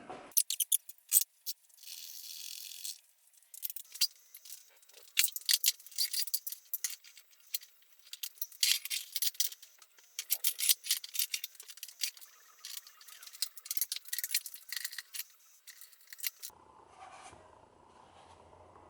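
Small hard parts, likely metal, clicking and rattling irregularly as they are handled, with a short scraping hiss about two seconds in. The clicking stops near the end.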